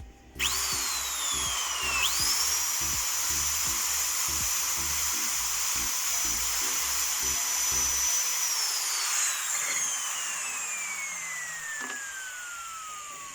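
Power drill running at a steady high speed, its whine rising as it starts and then holding. After about eight seconds it winds down slowly, the pitch falling. Background music with a beat plays under it for most of its run.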